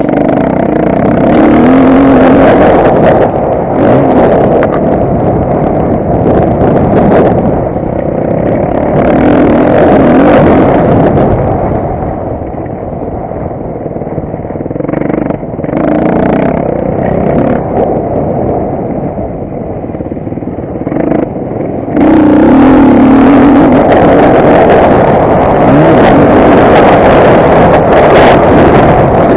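Motocross bike engine revving up and easing off again and again, in rising and falling sweeps. It dips quieter twice in the middle, then jumps suddenly louder and holds steady for the last several seconds.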